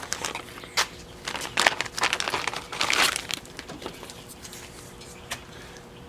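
Packaging crinkling and rustling as a new engine part is pulled out of it, with irregular crackles and clicks that die down after about four seconds.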